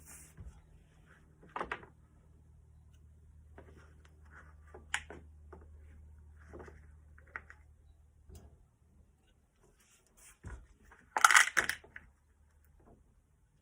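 Small steel ball bearings clicking as they are handled and dropped one by one into a greased bicycle hub bearing cup, with a burst of sharp metallic rattling about eleven seconds in.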